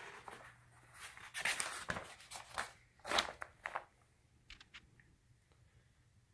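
Paper pages of an instruction booklet being turned and rustled, a string of noisy paper swishes over a few seconds, followed by a few light clicks.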